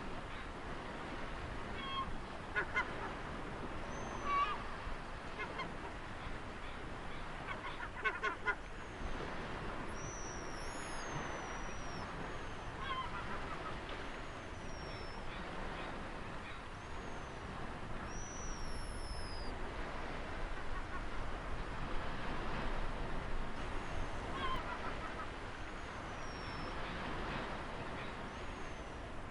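Ocean surf washing steadily, with a bird repeating short high down-slurred whistles every second or two and, now and then, short harsh honking bird calls in quick groups.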